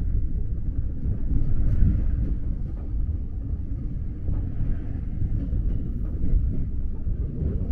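Seoul subway train running: a steady low rumble.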